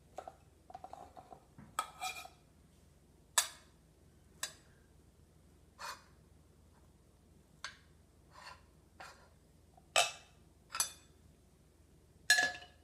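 Metal spoon and fork clinking and tapping against a plate and a metal rice-cooker pot while food is served: about a dozen separate sharp clinks, irregularly spaced, the loudest near the end.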